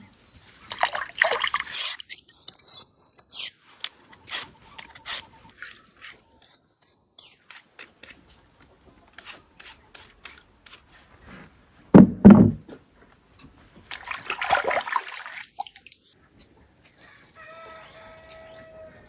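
Water splashing and pouring in two spells, amid many sharp clicks and knocks, with a loud low thump about twelve seconds in and a short steady pitched tone near the end.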